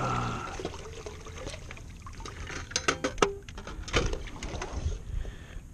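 Water pouring and trickling from a perforated stainless-steel bait bucket lifted at the side of an inflatable dinghy. There is a brief falling tone right at the start, and a few sharp metallic clicks and knocks about three and four seconds in as the lid is handled and closed.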